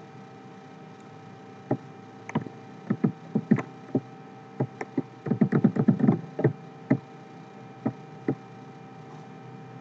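Computer keyboard and mouse clicking: scattered single clicks, then a quick run of about ten clicks around the middle as the Ctrl+D shortcut is pressed again and again. Underneath is a faint steady hum.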